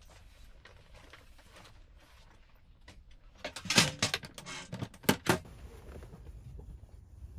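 A cluster of sharp clicks and rustles starting about three and a half seconds in and lasting about two seconds, over faint scattered ticks.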